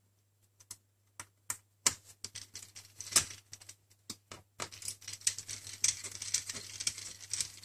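Light clicks and taps of a small screwdriver and a metal optical-bay hard-drive caddy being fitted into a MacBook Pro: a few separate clicks at first, then a denser run of small clicks and rustling from about halfway on.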